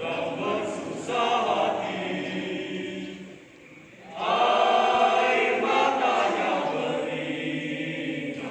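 A marching troop chanting a drill yell in unison. It comes as two long, sustained phrases, with a short break about three and a half seconds in.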